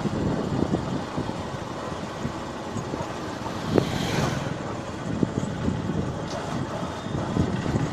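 Road traffic noise with a vehicle passing about four seconds in, plus a few short knocks from handling the phone.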